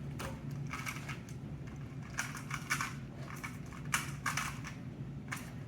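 Rubik's-type 2x2 speedcube being turned rapidly in a timed solve: a quick, irregular run of plastic clicks and clatters as the layers snap round.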